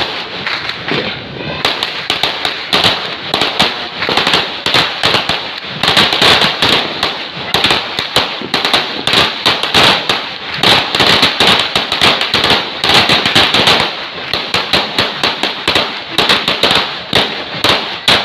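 Fireworks and firecrackers going off in a dense, rapid crackle of many sharp pops, barely pausing, with a short thinner spell about one and a half seconds in.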